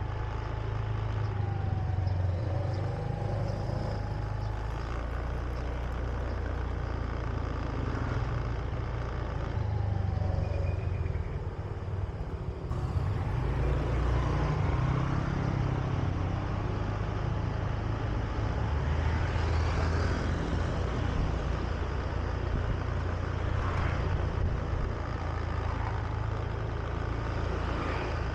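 Honda Beat single-cylinder scooter engine running under way, heard from the rider's seat over a steady low rumble, its pitch rising and falling with the throttle.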